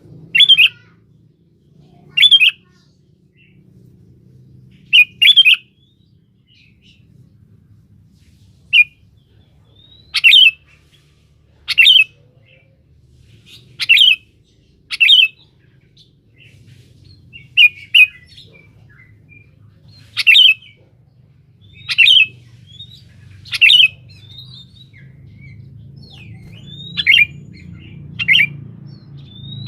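Sooty-headed bulbul (kutilang) giving short, loud calls, one every second or two, over a faint low hum.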